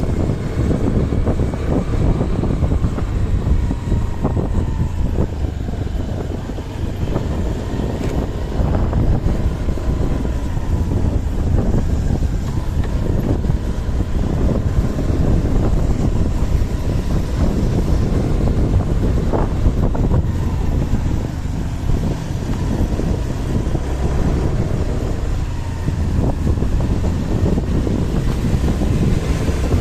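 Wind buffeting the microphone over the steady running rumble of a vehicle, with a faint high whine wavering through it.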